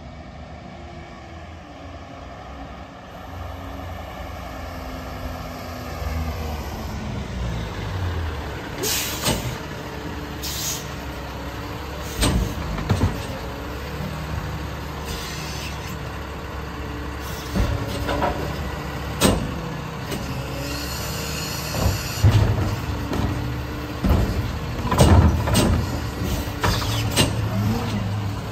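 Garbage truck with a Pac-Tech Bandit automated side-loading arm pulling up: its engine slows and the air brakes hiss. The hydraulic arm then grabs a trash cart and empties it into the hopper, with repeated sharp clanks and bangs over the idling engine.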